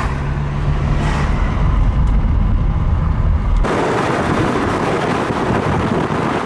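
Car engine idling during a warm-up, a steady low hum and rumble. A bit over halfway through it cuts off abruptly and a loud, even rushing noise takes over.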